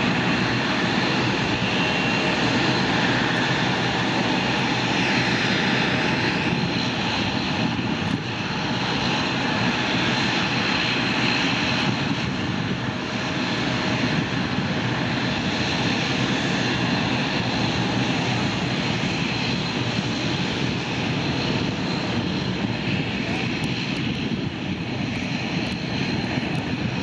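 Airliner engines running steadily and loud, a dense rush of noise with a thin high whine held over it.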